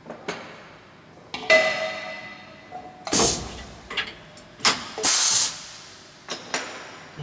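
Steel tool holder and tooling clanking against metal at a CNC mill: a ringing metal clank about a second and a half in, then several lighter knocks. Between the knocks come two short loud hisses about two seconds apart.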